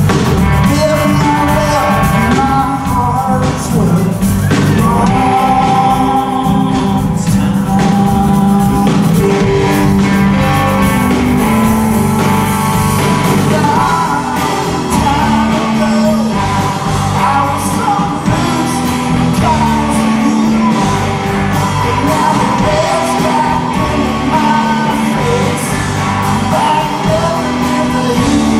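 Rock band playing live, with electric guitars, bass guitar, drums and keyboard, and a singer's voice over the band.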